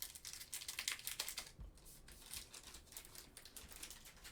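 Foil trading-card pack wrapper crinkling and tearing as it is opened by hand: a quick run of crackles, busiest in the first couple of seconds.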